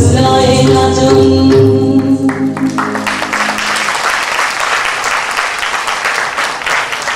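Odissi dance music ends on long held notes that die away about three seconds in, and audience applause starts and carries on to the end.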